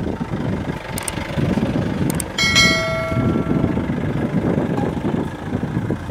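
Subscribe-button sound effect: two clicks, then a bright bell-like notification ding that rings out for about half a second, over a steady low rumble.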